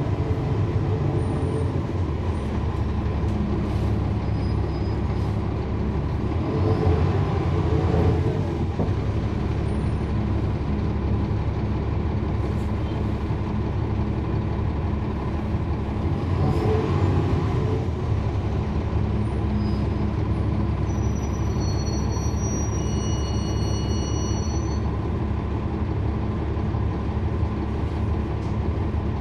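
The Cummins ISL9 straight-six diesel of a 2012 NABI 40-SFW transit bus running steadily as a low drone. Two brief swells of hissing noise come about a quarter and just over halfway in, and a high steady tone sounds for a few seconds about three-quarters in.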